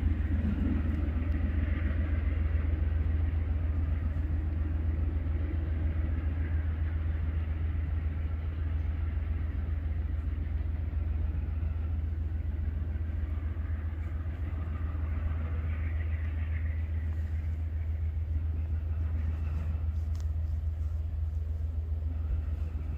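Steady low rumble of a freight train rolling past, easing off slightly toward the end.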